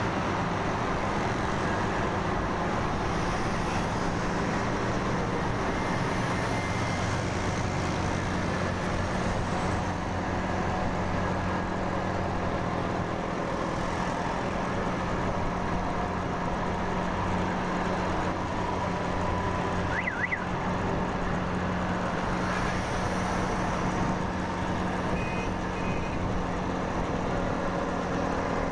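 Motorcycle engine running steadily at cruising speed, heard from the rider's seat, mixed with wind and road noise and surrounding traffic. A brief high wavering tone sounds about two-thirds of the way through, and two short high beeps come near the end.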